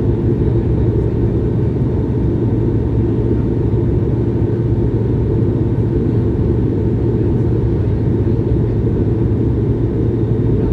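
Steady roar of an Airbus A220-100 in its climb, heard inside the cabin: the Pratt & Whitney PW1500G geared turbofans and the airflow past the fuselage make a constant deep rumble with a low hum and faint steady tones above it.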